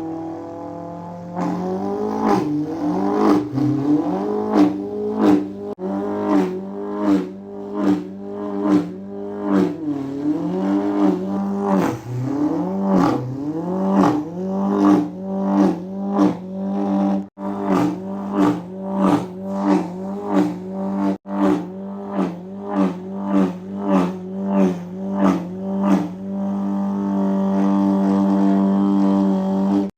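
A person's voice imitating a BMW M8 Competition's engine while drifting: a held drone, then rapid rising and falling revs over and over, like throttle blips and shifts, settling into a steady held drone near the end.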